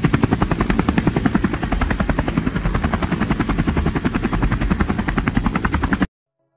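Helicopter rotor sound: a fast, even chop of the blades that cuts off suddenly about six seconds in.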